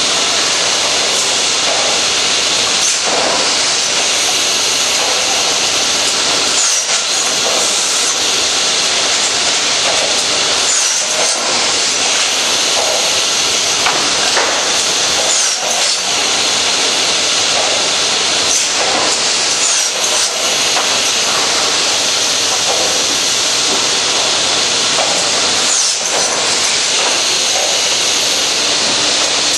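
Automatic board feeder on a pallet-making line running: a steady, loud hiss of machinery with a knock or clatter every few seconds.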